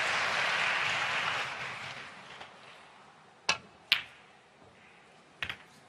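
Audience applause dying away. About three and a half seconds in, a snooker cue tip strikes the cue ball with a sharp click, and under half a second later the cue ball clicks against a red. A fainter ball click follows near the end.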